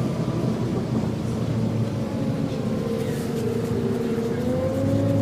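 Volvo B7TL double-decker bus running under way, with a loud whine over the drivetrain rumble; the whine rises a little about four and a half seconds in, then eases.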